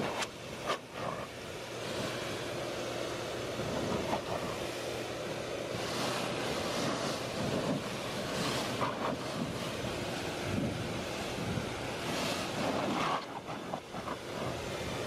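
Leaf blower running steadily, a rushing blast of air over a low, steady hum, briefly dipping in level about a second in and again near the end.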